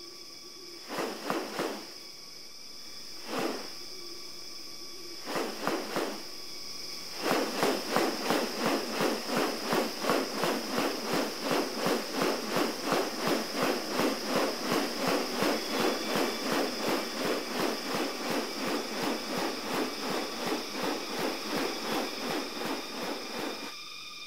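Rainforest ambience with a steady high-pitched insect drone. A few short pulsing sounds come early, then a fast rhythmic train of pulses, about three a second, from about seven seconds in until just before the end.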